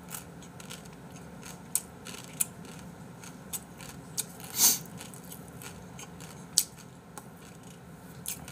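Dry, uncooked instant cup noodles (Yukgaejang ramen) being eaten raw: scattered crisp cracks and crunches, with one louder crunch about halfway through.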